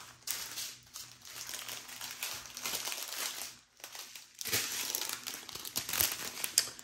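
Small plastic zip bags of diamond-painting drills crinkling and crackling as they are picked up and handled, with a brief lull a little past halfway.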